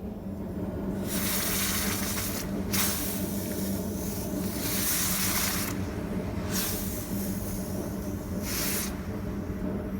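Hot forged steel being quenched in water, hissing in several bursts with short breaks between them, over a steady low hum.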